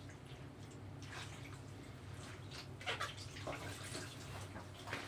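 Wet clothes being pushed and squeezed down into a plastic bucket of water, with irregular sloshing, splashing and dripping; the loudest splashes come about three seconds in and near the end. A steady low hum runs underneath.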